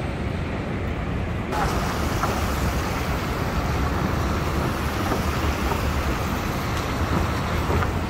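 Street traffic on a wet city street: cars passing over the rain-soaked road, with a steady hiss that grows brighter about a second and a half in.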